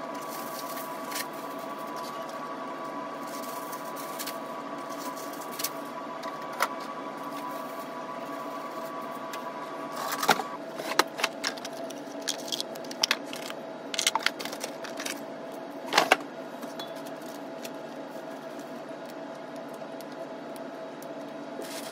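Steady hum of running lab equipment holding several tones, the highest of which stops about ten seconds in. Over it come clicks and knocks of items being handled on the bench, the sharpest about ten and sixteen seconds in.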